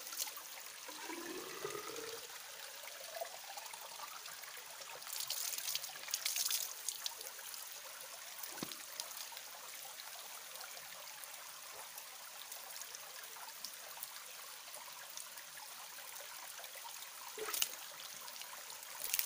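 Small creek running: a steady hiss of flowing water, with a few brief louder rushes about five and six seconds in.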